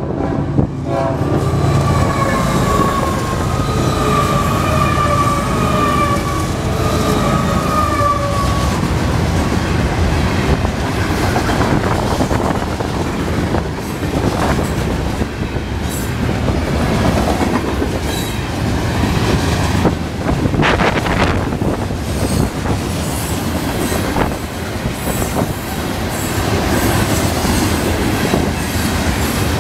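A long freight train passing close by. The locomotive's horn sounds as the engines go past, its pitch dropping slightly. The horn is followed by the steady rumble and clickety-clack of loaded freight car wheels over the rail, with a sharp clank a little past two-thirds of the way through.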